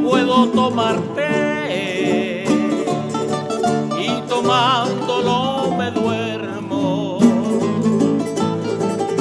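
Canarian folías: a man singing with a wide vibrato over strummed and plucked guitars and other folk strings. The voice stops about seven seconds in and the strings play on alone.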